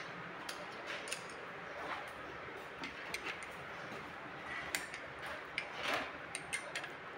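Irregular light metallic clicks and ticks of a wrench and screwdriver working the rocker-arm adjusting screw and locknut on a Kubota V1505 diesel, while the valve clearance is set with a feeler gauge.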